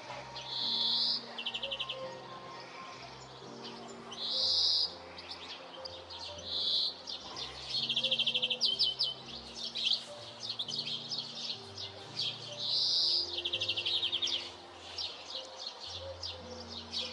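Small songbird calling repeatedly: short harsh notes alternating with fast trills. Soft background music with slow held low notes plays underneath.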